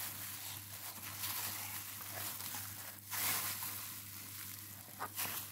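A plastic spatula stirring and scraping crumbly glutinous rice flour dough in a bowl, with a plastic-gloved hand working the mix: a soft rustling hiss that swells about three seconds in.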